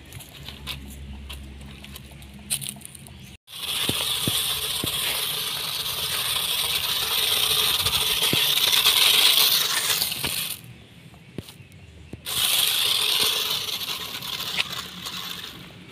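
Toy RC off-road truck driving through a layer of loose grain, its tyres churning and scattering the grains in a steady hiss with scattered small clicks. It starts suddenly a few seconds in, drops away for a moment about two-thirds of the way through, then returns. Before it, the truck drives more quietly over dirt and dry leaves.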